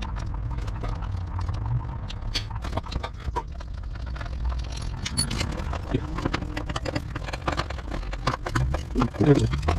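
Irregular clicks and scrapes of hand tools working on metal, over a low steady rumble.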